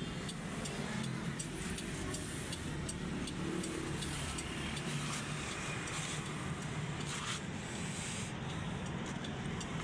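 Steady rumble of road traffic heard from inside a parked car.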